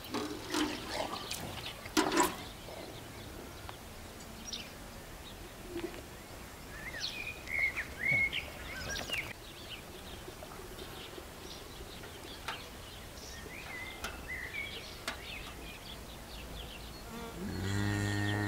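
Cow feeding with its muzzle in a metal bucket, two sharp knocks of the bucket in the first couple of seconds. Behind it are insects buzzing and small birds chirping, and near the end comes a low, steady animal call about a second long.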